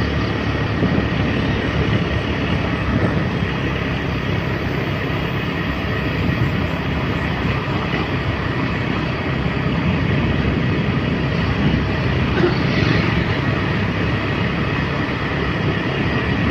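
Steady rumble and rush of a motorbike being ridden: the engine running under road and wind noise on the microphone.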